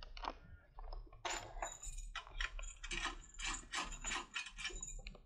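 Rapid, irregular metallic clicking and rattling of small steel lock-picking tools being handled.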